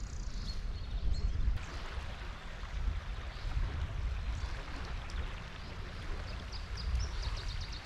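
Small river flowing steadily with a continuous rushing sound over a low rumble. A brief run of high chirps comes near the end.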